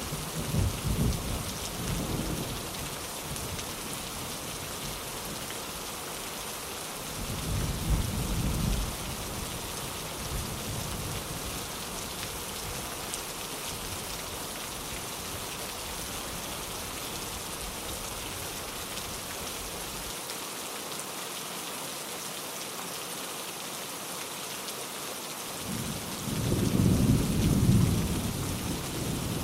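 Steady heavy rain with rumbles of thunder: one as it begins, a short roll about seven seconds in, and a longer, louder roll near the end.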